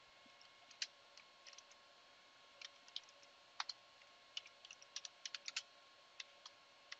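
Faint computer keyboard typing: irregular single keystroke clicks, with a quick run of several about five seconds in, over a faint steady hum.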